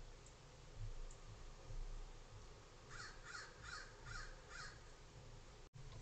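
An American crow cawing five times in quick succession about three seconds in. Before it there are a couple of dull, low thumps close to the microphone.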